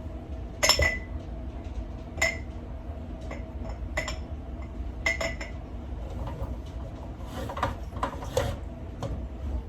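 Small whole potatoes being packed into glass pint jars, knocking against the glass in sharp ringing clinks about every second or two, with several close together near the end, over a steady low hum.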